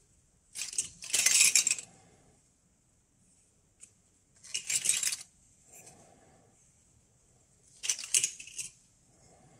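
A heap of metal Geiger–Müller counter tubes clinking and jingling as a hand stirs through them in a plastic bag. The sound comes in three bursts about three seconds apart, the longest and loudest about a second in.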